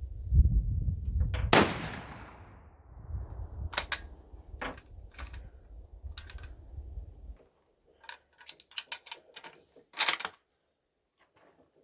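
A single shot from a .45-70 bolt-action Mauser rifle about a second and a half in, with a long fading echo, over low wind rumble. It is followed by scattered sharp metallic clicks and clacks, the loudest near the end.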